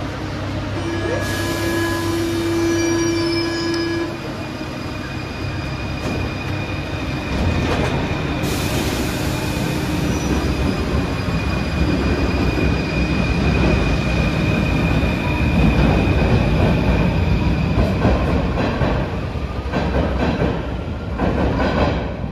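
Paris Métro train running between stations, heard from inside the carriage: steady wheel-on-rail rumble with a long, steady high wheel squeal, and two short hissing bursts. The rumble grows louder towards the end.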